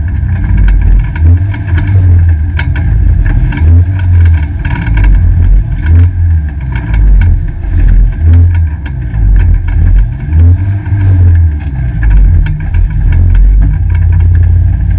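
Peugeot 205 GTi race car's engine running at low revs, heard from inside the stripped cabin as a heavy low rumble that swells and fades about once a second, with frequent sharp rattles and knocks. The car is limping down the pit lane with a broken gear linkage.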